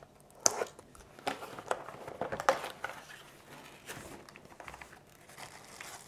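Cardboard box being handled and opened, with rustling of the packaging: scattered light knocks and rustles, a few sharper ones in the first half, then softer handling.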